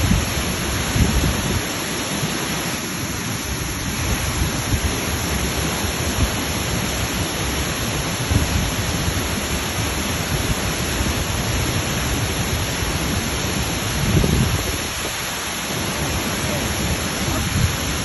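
Waterfall: a loud, steady rush of falling water, with an uneven low rumble underneath.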